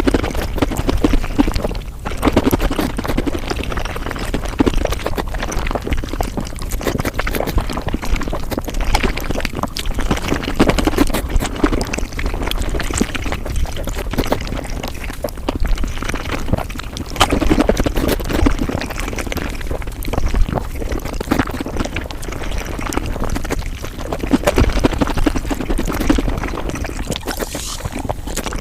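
Eating sounds sped up to five times normal speed: a dense, rapid run of chewing clicks and wet mouth noises.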